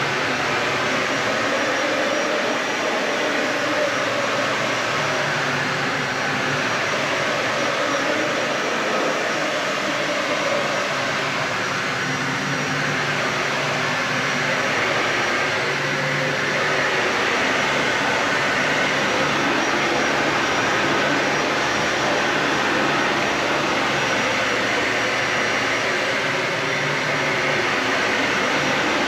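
Dyson Ball Animal 3 Extra upright vacuum cleaner running steadily on carpet, a loud even whoosh of motor and airflow with a few steady tones underneath and slight swells as it is pushed back and forth.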